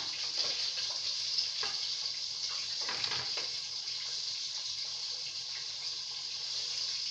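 Onions and tomatoes sizzling in hot oil in a frying pan, a steady hiss, with a few faint knocks of a utensil about three seconds in.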